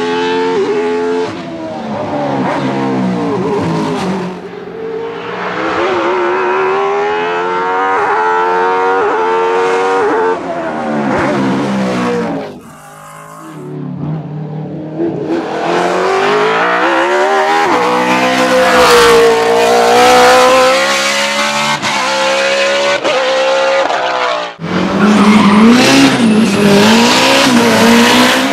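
Judd 3.5-litre 90-degree V8 racing engine of the Mercedes-Benz 190 RM 1 hillclimb car at full throttle, its pitch climbing and dropping again and again through the sequential gearbox's shifts, with some tyre squeal. There is a brief quieter gap about halfway through, and a sudden cut near the end.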